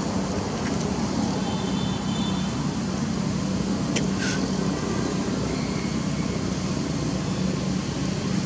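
Steady low outdoor background rumble, with one brief high call falling in pitch about four seconds in.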